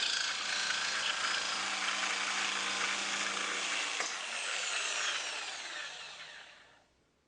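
Bosch GST Professional jigsaw running through a cut, a steady motor hum with the buzz of the reciprocating blade. About four seconds in the saw stops cutting and the motor winds down, its pitch falling as it fades out.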